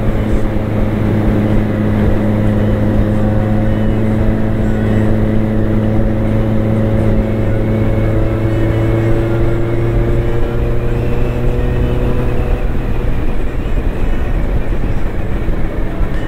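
Motorcycle engine running at a steady cruise, its pitch creeping up over a few seconds and then dropping about twelve and a half seconds in.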